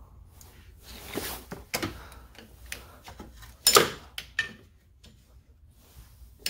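Screwdrivers prying at a shifter cable end on a transmission linkage: a series of metal clicks and scrapes, the loudest a sharp snap just under four seconds in.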